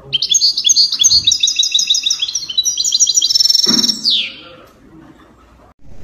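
Songbird song in fast, repeated high chirping trills, ending about four seconds in with a falling swoosh.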